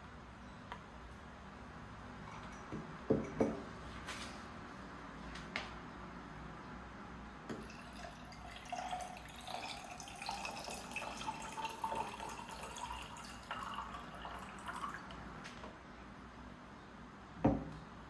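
Water pouring into a container, its pitch rising as it fills, with a couple of knocks about three seconds in and a thud near the end.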